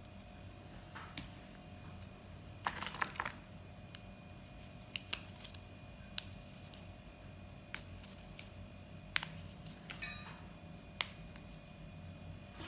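Crisp snaps of young wild fern (paku remudang) stems and shoots being broken off by hand. There is a short crackling cluster about three seconds in, then single sharp snaps spaced a second or more apart.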